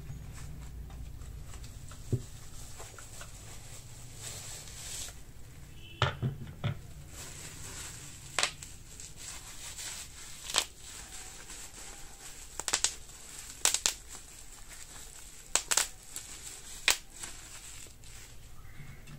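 Small accessories and their packaging being handled: a scattering of sharp clicks and taps, some in quick pairs and clusters, with light crinkling and rustling between them.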